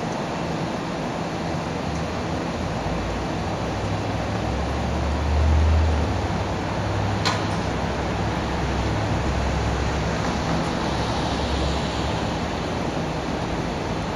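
Steady background noise with a low rumble that swells about five seconds in and fades again, and one sharp click about seven seconds in.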